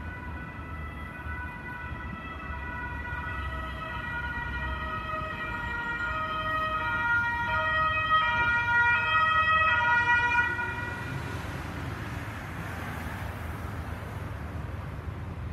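Two-tone emergency vehicle siren switching back and forth between a high and a low note. It grows louder to a peak about eight to ten seconds in, then cuts off sharply. Low traffic rumble runs underneath.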